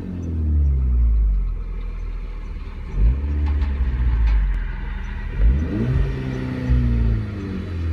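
Volkswagen Golf Mk6 GTI's turbocharged 2.0-litre four-cylinder on its stock exhaust, being revved in quick throttle blips. The pitch is falling back at the start, jumps up about three seconds in and again about five and a half seconds in, and each time sinks slowly back toward idle.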